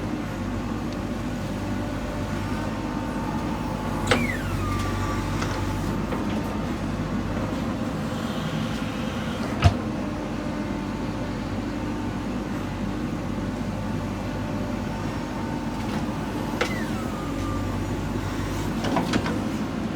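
JCB backhoe loader's diesel engine running steadily at work, with a few sharp knocks, the loudest about halfway through, and two brief high falling whines.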